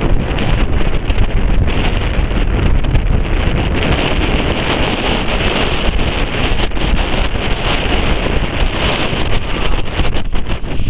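Strong wind buffeting the microphone on the bow of a moving boat, a loud, steady rumble and rush with constant gusty crackle, mixed with the hiss of rough sea.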